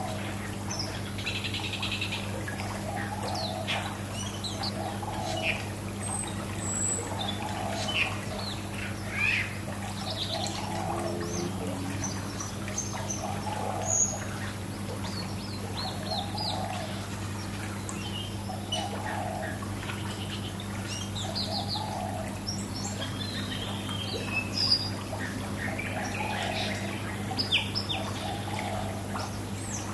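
Many small birds chirping and twittering in short, scattered calls over trickling pool water and a steady low hum.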